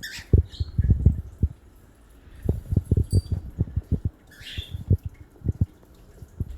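A series of irregular soft, low thumps and knocks, with a short high squeak at the start and a brief call from a pet bird about four and a half seconds in.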